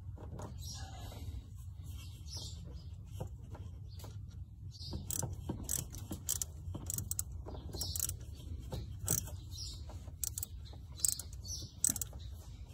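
Small metal clicks and scrapes of a hand tool working a hose clamp as a fuel line is pushed back onto the inline fuel filter of a 1986 Dodge D150. The clicks are irregular and come more often from about five seconds in.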